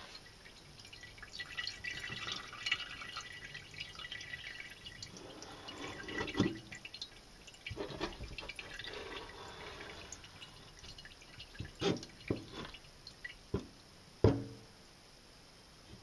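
Kitchen knife working a raw largemouth bass fillet on a plastic cutting board: soft wet handling and scraping, then a series of sharp taps of the blade on the board, the loudest near the end.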